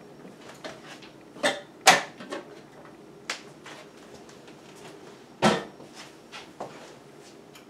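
A few separate clicks and knocks of hard kitchen items being handled: food processor parts being taken off and set down. The loudest knocks come about two seconds in and about five and a half seconds in.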